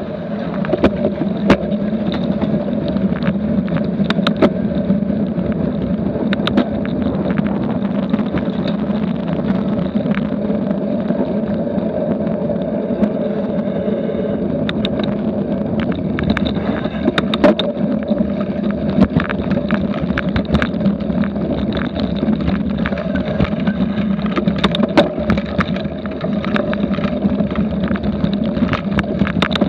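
Steady rush and rumble of a cyclocross bike at race speed as heard by a Garmin VIRB action camera riding along: wind on the microphone and tyres on pavement and grass, with frequent sharp clicks and rattles from the bike and camera jolting over bumps.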